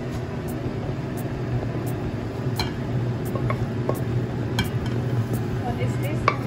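Stainless steel wok knocking against a ceramic plate as a stir-fry is tipped out: three or four sharp clinks, the loudest near the end, over a steady low hum.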